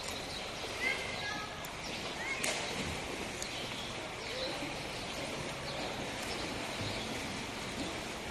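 Swimmers splashing through the water of an outdoor pool as a steady wash of noise, with a few short high chirps about one and two seconds in.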